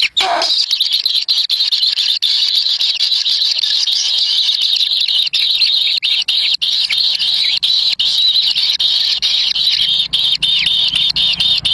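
Kingfisher nestlings begging: a dense, continuous, high-pitched squealing chatter of many overlapping calls as they compete for food at the nest.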